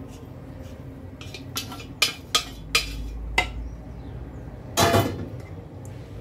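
Metal couscoussier steamer basket knocking against a ceramic serving plate as steamed vermicelli is tipped out and worked loose: a run of sharp clinks, then a louder clatter about five seconds in.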